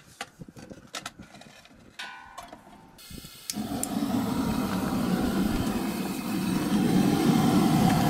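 A few light clicks and knocks, then about three and a half seconds in a gas ring burner under a large pot catches and burns with a loud, steady rush.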